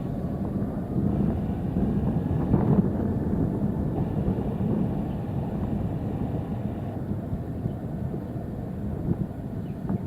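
Jet engines of a Singapore Airlines Airbus A380 at takeoff power: a steady, dense low rumble that eases slightly toward the end.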